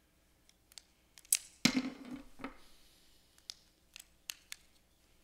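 Clicks and snaps of a small handheld presentation remote being handled and fiddled with close to a microphone, about nine separate clicks with one louder knock and short rattle about a second and a half in. The remote is failing for want of fresh AAA batteries.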